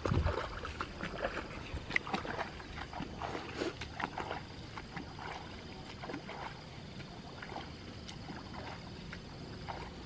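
Footsteps wading through a flooded rice paddy: an uneven run of splashing, sloshing steps in shallow water and mud, stronger in the first few seconds.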